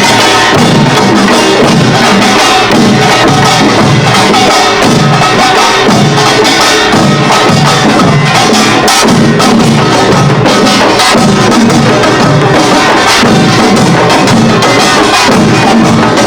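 Korean pungmul percussion band playing Imsil Pilbong-style nongak: small kkwaenggwari gongs clanging over janggu and buk drums in a dense, steady rhythm.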